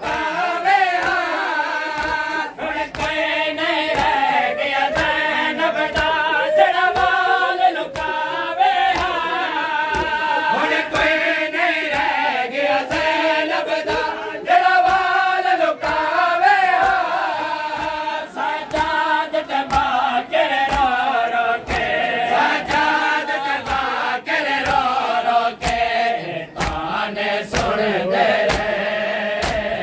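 A group of men chanting a Punjabi noha, a Shia mourning lament, in unison, over a steady beat of thuds from hands striking chests (matam).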